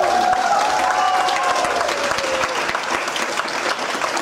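Audience applauding, dense clapping throughout, with a voice calling out over it in the first two seconds or so.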